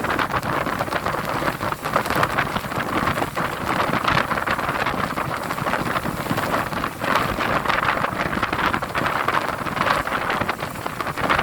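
Rough sea roaring steadily, a dense crackling wash of surf and wind with no distinct single wave breaks.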